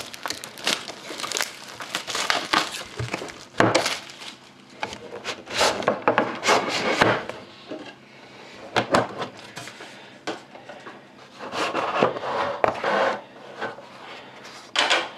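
Irregular rustling, crinkling and scraping of packaging: a sealed trading-card box being opened and its cardboard and wrapping handled, in uneven bursts.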